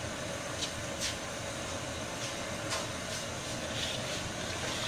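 Steady rushing noise of a stove burner under a pot of sugar syrup at the boil, with a few faint ticks.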